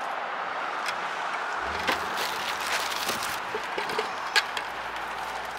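Fishing gear being unloaded from a car trunk: a few light knocks and clicks over steady outdoor background noise.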